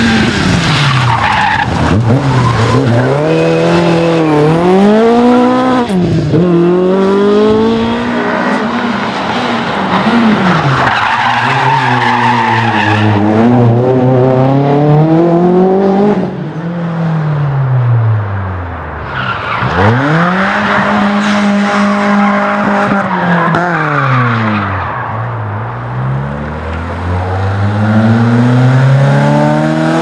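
Rally cars at full throttle one after another, among them a Ford Escort Mk2, a Renault Clio and a BMW E30 3 Series. Each engine's pitch climbs hard, drops back at every gear change and falls away as the car passes. Tyres skid at times.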